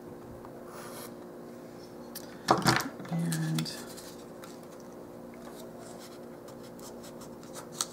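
Craft knife and black paper being handled on a cutting mat, with one sharp clatter about two and a half seconds in and a few light clicks near the end.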